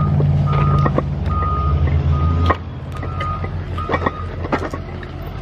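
A vehicle's reversing alarm beeping at one steady pitch, a little more than once a second, over an engine's low running. The engine drops in level about halfway through, and the beeps stop about four seconds in. A few sharp clanks are heard among them.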